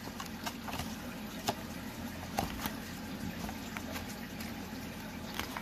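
Pages of a paperback colouring book being handled and flipped, with scattered light paper ticks and rustles over a steady low background hum.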